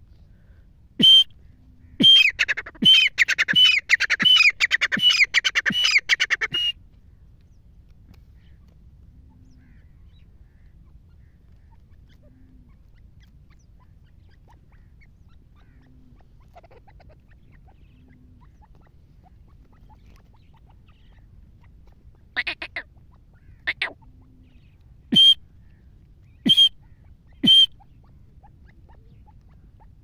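Grey francolin calling: one loud note, then a rapid run of loud, harsh repeated calls for about five seconds. After a long pause come a few weaker notes and then three loud single calls near the end.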